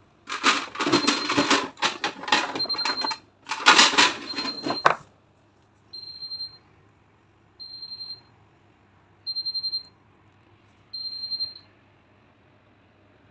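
An oven timer beeping, one short high tone about every second and a half, the signal that the hour's cooking time is up. During the first five seconds a metal baking tray clatters and scrapes loudly as it is handled.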